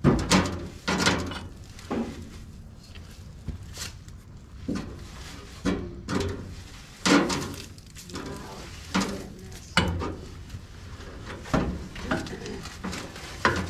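A string of irregular knocks and clunks, roughly one a second and varying in strength, with quieter scraping and rustling between them, like hard objects being handled or knocked about.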